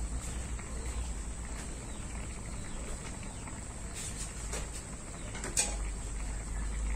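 Braising liquid with pieces of scad fish boiling in a frying pan, a steady bubbling with a few short sharp clicks a little past the middle.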